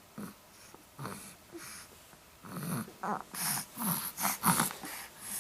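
A three-month-old baby's short vocal sounds and breathy huffs. They come in a string of separate little utterances that crowd together and get louder about halfway through.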